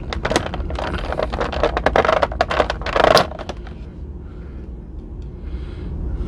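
Clear plastic blister tray crackling and clicking as an action figure is pried out of it: a dense run of crackles, loudest just past three seconds in, then quieter handling once the figure is free.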